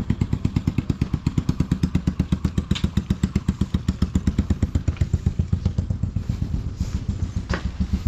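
A small engine running steadily with a fast, even putter of about ten beats a second. A single sharp knock sounds near the end.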